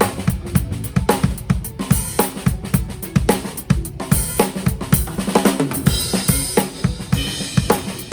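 Full drum kit played in a busy, continuous groove: a Yamaha Maple Custom Absolute kit with kick, snare and toms, and Zildjian cymbals ringing over rapid strikes several times a second.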